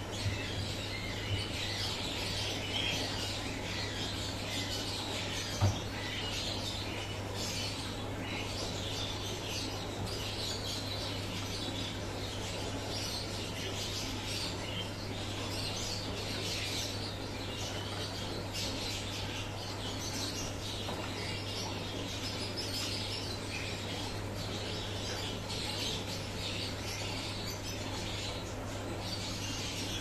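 Many small birds chirping continuously over a steady low hum, with a single sharp click about five and a half seconds in.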